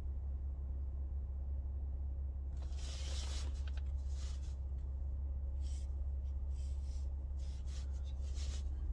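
Low steady hum inside a car's cabin. From about two and a half seconds in it is overlaid by irregular rustling and rubbing as the hand-held phone is shifted around.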